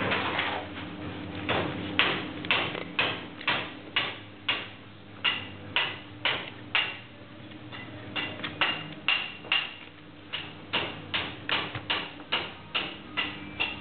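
Quick sharp clicks and taps, roughly two a second and a little uneven, from a kitchen knife working through a raw chicken carcass and striking bone and the wooden cutting board.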